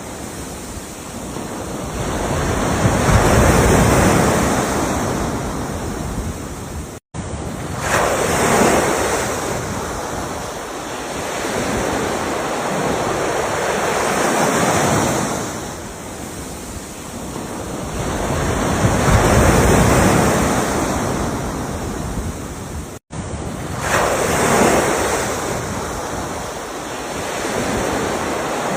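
Ocean surf: waves break and wash back in a slow rhythm, swelling and receding about every five seconds. The sound cuts out to silence for a split second twice, about seven seconds in and again about twenty-three seconds in.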